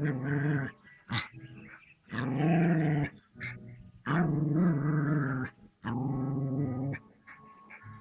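A small terrier-type dog growling at a reared cobra: four long, low growls of about a second each, with short pauses between them.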